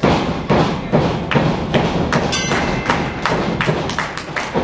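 Repeated thuds of wrestlers' bodies and feet hitting the canvas of a wrestling ring, two to three a second and irregular, with a brief high tone a little past halfway.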